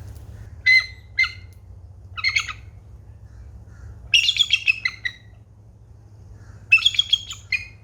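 A bird giving harsh squawking calls in short separate groups: single calls about a second in, another just after two seconds, then a quick run of calls about four seconds in and another run near the end.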